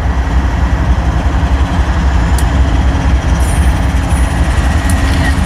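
Diesel locomotives of a departing passenger train going by, led by a BNSF ES44C4 (GE GEVO) under power: a loud, steady, deep engine rumble with rail noise.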